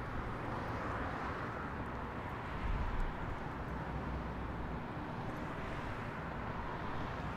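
Outdoor city ambience: a steady hum of distant traffic, with a low rumble swelling briefly about three seconds in.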